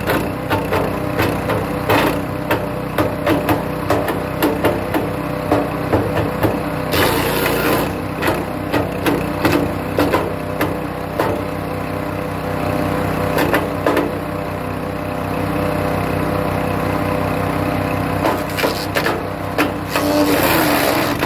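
Hecht 6208 wood chipper running at steady speed while birch branches are fed in, with rapid cracking and splintering as the wood is chopped. The cracking eases off for several seconds after the middle, leaving the engine running on its own, then picks up again near the end.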